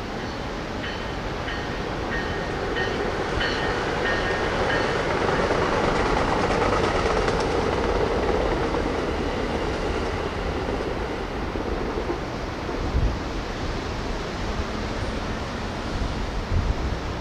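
Amtrak Pacific Surfliner passenger train, led by a diesel locomotive, passing on the coastal line: engine and rolling wheel noise swell to a peak about halfway through, then ease off as the last cars go by. A string of short high ticks runs through the first few seconds.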